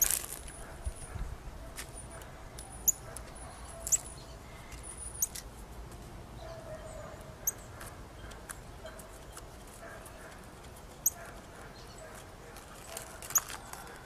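Quiet handling sounds as dried collard leaves are peeled off a cured hypertufa cement casting, with about six short, sharp high-pitched ticks spread through it.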